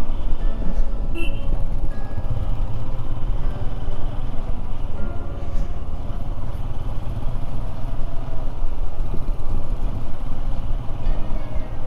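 Royal Enfield Himalayan's single-cylinder engine running steadily on the move, with wind rumble on the microphone. Background music plays faintly underneath.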